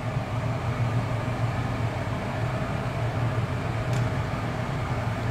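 Steady low mechanical hum of room ventilation, with a single faint click about four seconds in.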